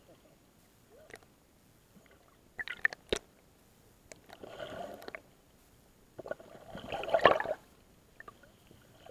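Sea water sloshing and gurgling around a camera moving at the surface, half in and half out of the water, in irregular bursts. A few sharp knocks come about three seconds in, and the loudest slosh comes about seven seconds in.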